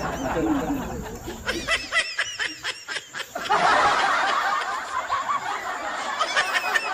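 A person snickering: a quick run of short, high laughs about two seconds in, over steady background noise.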